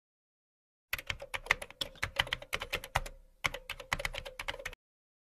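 Computer keyboard typing sound effect: a quick run of key clicks starting about a second in, with a short pause midway, then stopping abruptly.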